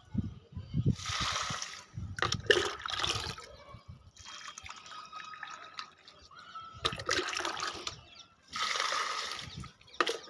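Water poured from a plastic mug onto the soil of potted plants, and the mug dipped back into a plastic bucket of water to refill it. There are several pours, each a second or more long, with short pauses between them.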